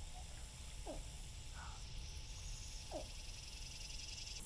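Quiet wetland ambience: a steady high insect drone and low rumble, with a short falling chirp-like animal call repeating about every two seconds.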